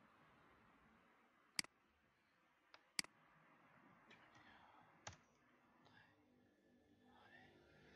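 Four sharp computer mouse clicks, a second or two apart, against faint room hiss.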